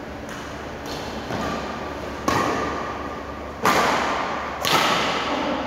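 Badminton rackets hitting a shuttlecock in a rally: three sharp, loud hits, the first two about one and a half seconds apart and the next a second later, each echoing briefly in the hall, after a few fainter taps earlier.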